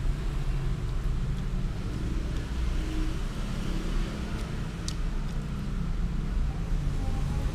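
A steady low motor rumble with faint wavering hum, and a single short click about five seconds in.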